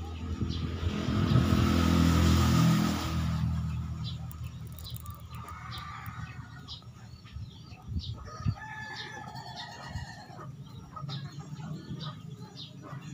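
Rooster crowing, with chickens clucking and small birds chirping in the yard.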